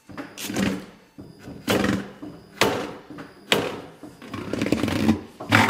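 Tyre changing machine turning an alloy wheel while the upper bead of a low-profile tyre is dragged off the rim over the mount/demount head: a series of sharp clunks and rubbery scrapes about once a second, then a steadier running sound building near the end.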